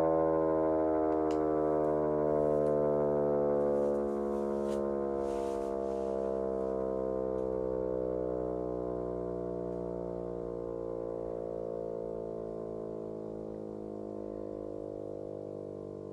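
Miniature Federal Signal STH-10 siren with horns, spun by a capacitor-run induction motor, winding down after the power is cut: its wail slowly falls in pitch and fades as the rotor coasts.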